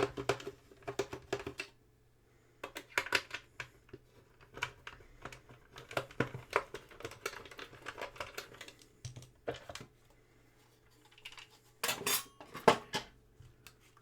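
A Commodore Datassette tape deck being handled and tipped, with irregular clicks, knocks and light metallic clinks: a loose paperclip rattling inside the deck, loudest in a burst near the end.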